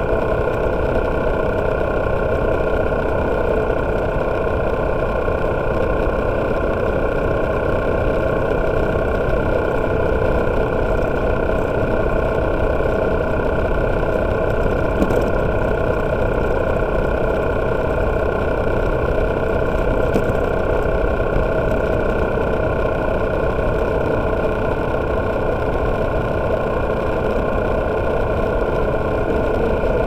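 Freshly overhauled motorcycle engine running at a steady cruise, its pitch holding even, with low wind rumble on the microphone.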